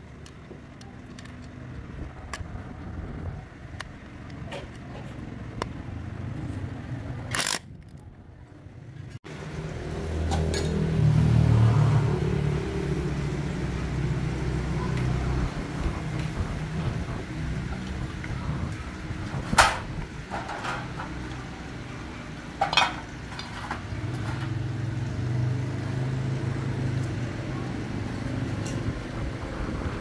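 Metal parts clinking and knocking as they are handled, over a low steady hum, with a few sharper clicks near the middle.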